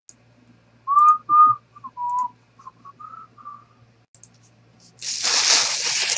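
A man whistling a handful of short notes of a tune, some gliding up or down. About five seconds in, a burst of rustling follows.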